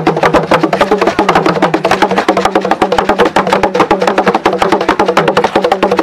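Fast, dense drumming that accompanies a Chewa Gule Wamkulu masked dance: a steady rapid beat of many strokes a second, loud and unbroken.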